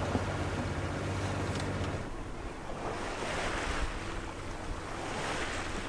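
Sea water rushing and splashing along a sailboat's hull, with wind on the microphone; the wash swells twice. A steady low hum runs under it for the first two seconds.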